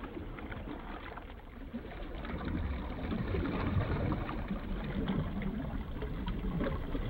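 Ocean ambience: a steady wash of noise with many small crackles and a low rumble, growing louder about two and a half seconds in.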